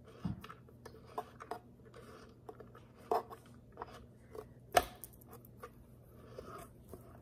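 Allen key turning a bolt in a metal corner bracket of a toddler chair: scattered light clicks and scrapes of metal on metal, with one sharper click about two-thirds of the way in.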